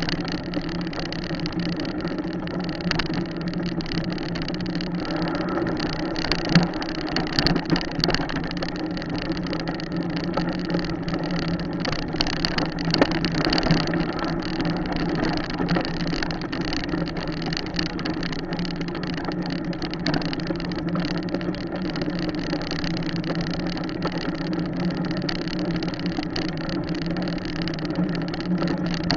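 Small motorcycle engine running at a steady pace, heard from the bike while it rides along a dirt road, with a few brief knocks about a quarter to halfway through.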